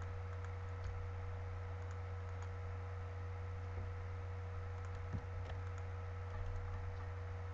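A few faint computer mouse and keyboard clicks over a steady low hum.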